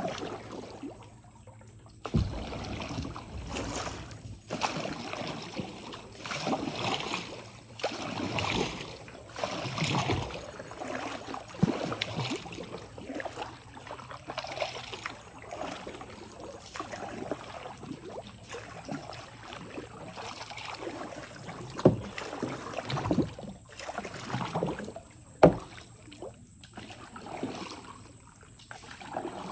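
Irregular water splashing and swishing, with a few sharp knocks.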